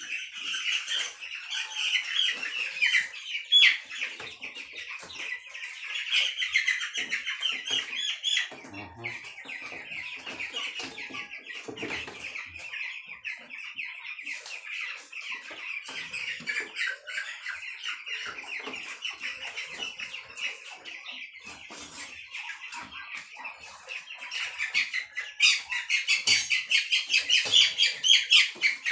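A pen of young broiler chickens peeping and chirping continuously, many birds at once, with a few knocks. The peeping grows louder and busier near the end.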